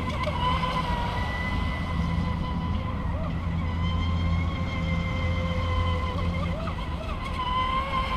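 Wltoys WL916 RC speedboat's brushless motor running at speed: a steady high-pitched whine that wavers slightly in pitch a few times, over a low rumble.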